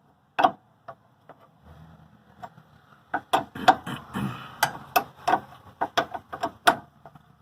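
Sharp metallic clicks and clinks at an irregular pace as the open end of a wrench is repeatedly set on and turned against a stabilizer link nut, with a faint low hum underneath from about two seconds in.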